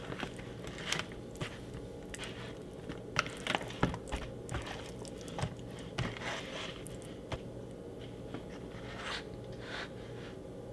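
Scattered light clicks, taps and scrapes of hands handling food and kitchen items while seasoning steaks, over a faint steady hum.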